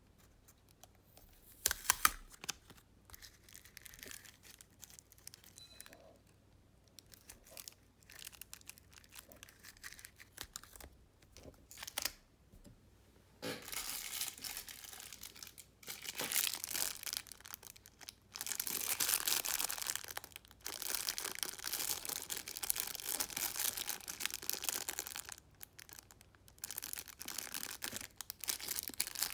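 Squishy toys being handled, with crinkling and rustling in irregular stretches. A sharp click comes about two seconds in, and the rustling grows louder and longer from about halfway through.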